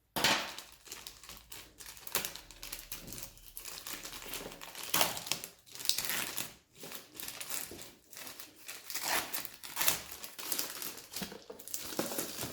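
Wrapping cover crinkling and crackling in irregular bursts as it is pulled off a product box by hand.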